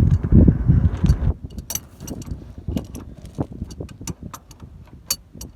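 A loud low rumble for about the first second and a half, then irregular light metallic clicks and clinks of a hand wrench working on the rack-and-pinion mounting bolt.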